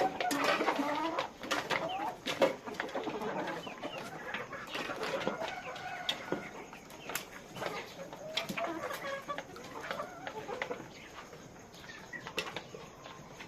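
A flock of hens clucking, many calls overlapping, with scattered sharp clicks among them. It is busiest in the first few seconds and thins out toward the end.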